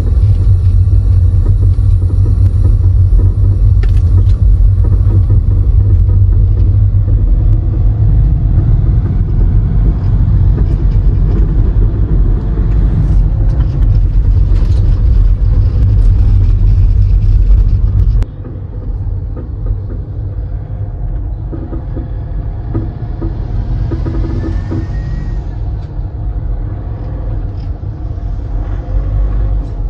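Skoda Rapid diesel being driven, with a heavy low rumble of road and running noise and the front suspension's knocking noise, traced to a worn front lower-arm bush. About two-thirds of the way through the level drops suddenly to a quieter run with occasional knocks.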